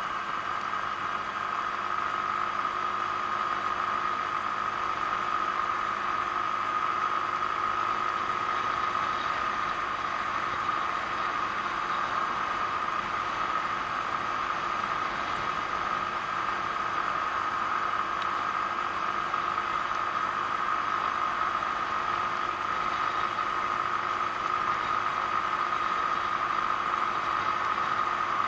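Genuine Buddy 125 scooter's single-cylinder four-stroke engine running steadily at a constant cruising speed, a steady drone with a high steady tone, over the rush of wind and road noise.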